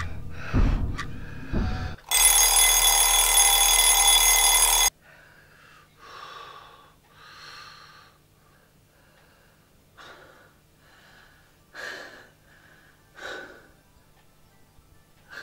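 Loud deep thuds, then a shrill ringing that holds for about three seconds and cuts off suddenly, followed by a man's heavy breathing and gasps.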